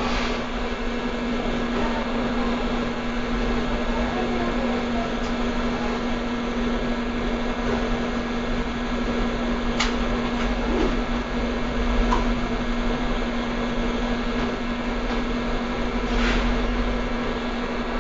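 Hot air rework station blowing steadily from its nozzle, with a constant motor hum, as it heats a capacitor to desolder it from a laptop motherboard. A faint click or two sounds in the middle.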